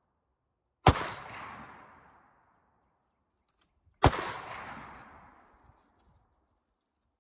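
Two single shots from a PSL-54C semi-automatic rifle in 7.62x54R, about three seconds apart, each followed by an echo dying away over a second or two.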